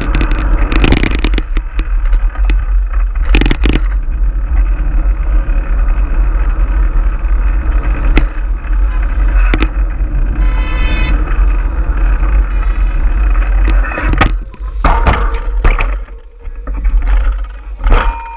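Loud wind buffeting on the microphone of a camera on a fixed-gear bicycle riding fast through city traffic, with tyre and traffic noise underneath. Sharp knocks and clacks come now and then, and a brief high buzz about ten seconds in.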